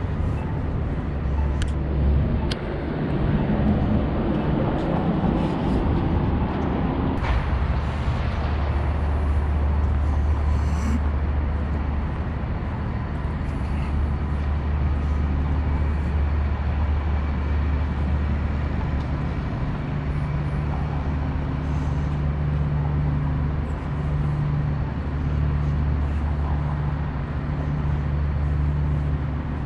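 City street ambience: a steady low rumble of traffic and building machinery, fuller for the first several seconds, with a couple of sharp clicks about two seconds in.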